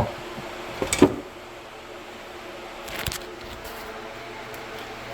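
A short metal clank about a second in, then the steady hum of an electric shop fan.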